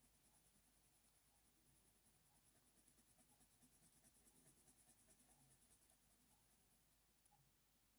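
Very faint, quick, even scratching of a white Faber-Castell Polychromos colour pencil rubbed in short strokes over hot press watercolour paper: burnishing, pushing the pigment into the paper. The strokes fade out near the end.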